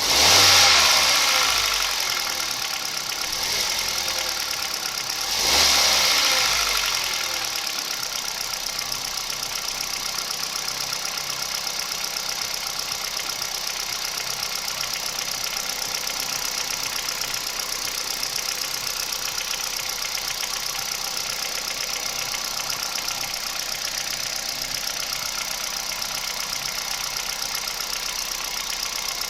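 Kia Picanto 1.2 G4LA four-cylinder petrol engine blipped twice, falling back each time, then idling steadily with an even knock running through it. The owner takes it for an unexplained engine knock at about 96,000 km and does not know its cause.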